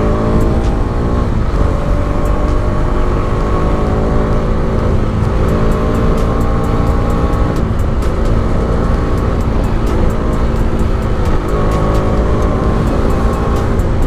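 Motorcycle engine under way, recorded on the rider's mic, its pitch climbing and dropping several times as it goes through the gears. A heavy rumble of wind and road noise lies under it.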